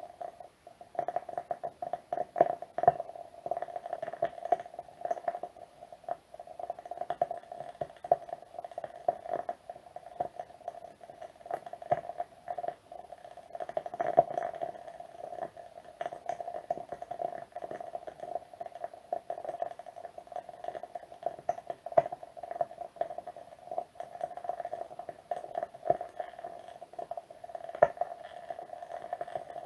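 Wood wick candle crackling: a continuous run of small, irregular pops and ticks from the burning wooden wick over a steady hum, with a few louder pops, such as one about 22 seconds in and another near the end.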